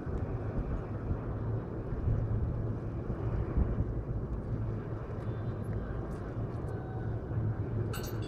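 Steady low outdoor rumble with a constant low hum, and a short run of sharp clicks right at the end.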